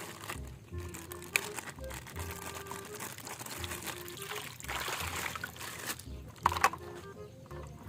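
Water pouring and splashing, with a few sharp clicks and splashes, the loudest near the end, over light background music.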